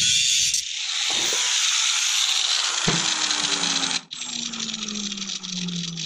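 Angle grinder grinding steel, lifted off the work within the first second and then switched off, its motor spinning down with a steadily falling whine. About four seconds in the sound drops suddenly and a rougher rattle carries on as the disc winds down.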